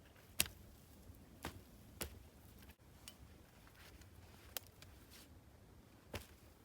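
A handful of separate, sharp knocks and clicks, about five in all, the loudest about half a second in, against a quiet background.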